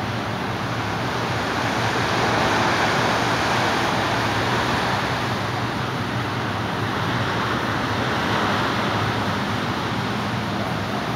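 Surf washing onto a sandy beach, swelling about two seconds in and again near eight seconds, over a steady low drone of many motorboat engines out on the water.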